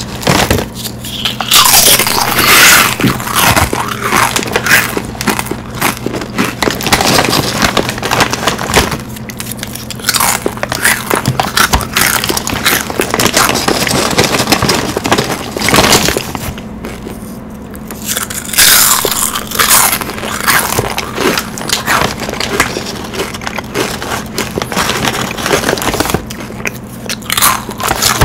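Loud, close-miked crunching and chewing, coming in bursts with brief pauses, over a steady low hum.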